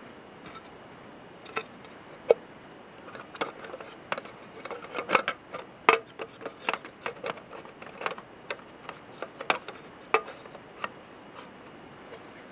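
Handling noise: irregular sharp clicks and taps, with no steady rhythm, thickest between about three and seven seconds in.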